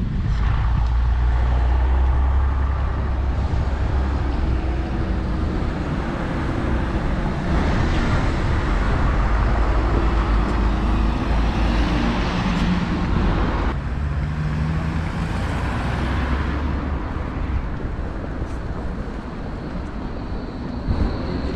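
City road traffic: motor vehicles passing with a steady low rumble. The noise swells in the middle and drops off sharply about fourteen seconds in.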